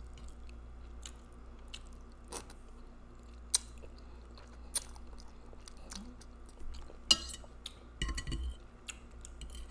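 Close-miked chewing and slurping of spaghetti in meat sauce, with scattered sharp wet clicks.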